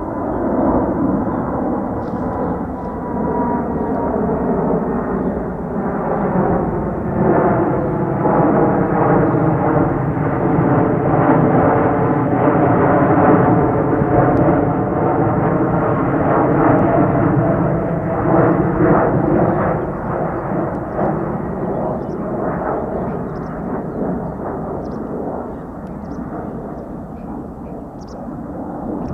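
Boeing 747-8F freighter's four GEnx turbofans at takeoff power, a loud jet noise that swells as the aircraft passes and slowly fades. A hollow, sweeping phasing tone shifts through the noise at its loudest.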